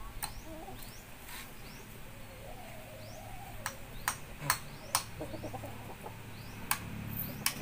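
Several sharp, irregular knocks from hand-tool work, over faint rising bird chirps and a short wavering chicken call about halfway through.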